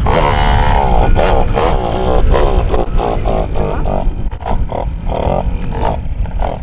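Small 60 cc two-stroke Kawasaki motocross engine catching on a push start, firing in uneven bursts and revving up and down. The owner takes the stumbling for fuel lines clogged after years of standing.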